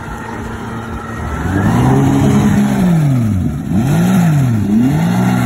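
Yamaha outboard motor revving hard under load, its pitch rising and falling about four times as the propeller churns up spray, with a steadier lower engine sound in the first second or so.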